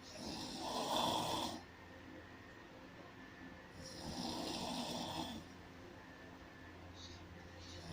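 Snoring in slow, regular breaths: two long snores about four seconds apart, each lasting about a second and a half, with a third just starting at the very end.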